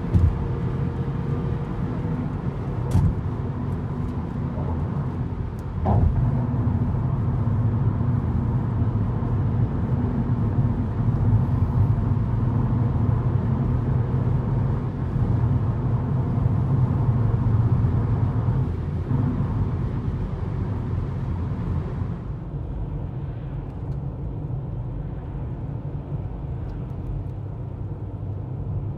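Steady road and engine noise heard from inside a moving car, with a brief knock about three seconds in and another about six seconds in. The noise turns duller, with less hiss, about three-quarters of the way through.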